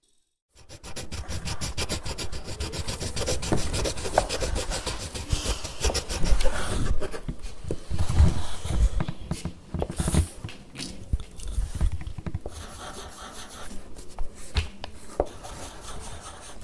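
Rapid scratching and rubbing, many quick strokes a second, on a hard surface, with a few knocks in between.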